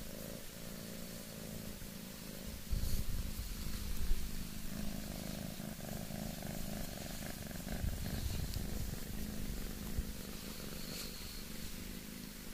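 Scottish Fold cat purring steadily while it is stroked and rubbed, with a louder low stretch about three to four seconds in.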